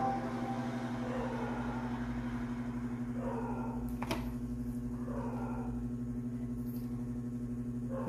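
TV audio playing through a small speaker fed by an optical-to-RCA digital-to-analog converter: a steady low drone with a quick regular pulse, two faint sweeping sounds near the middle, and a single sharp click about halfway.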